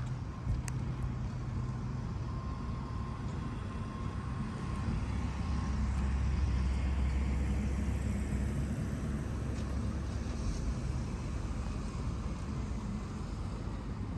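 Low, steady rumble of motor vehicles, swelling about five seconds in and easing again about four seconds later.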